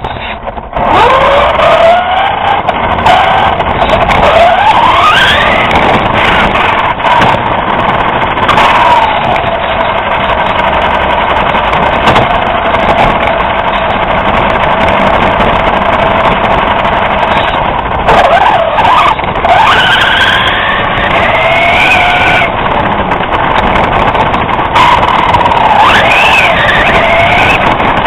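RC car motor whining, its pitch repeatedly rising and falling as it speeds up and slows, over steady rolling noise, heard from a camera mounted on the car itself.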